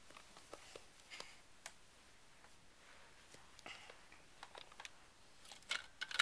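Faint, irregular small clicks and taps from a Bedazzler rhinestone-setting tool being handled and pressed while rhinestones are set into a fabric strip, with the loudest clicks near the end.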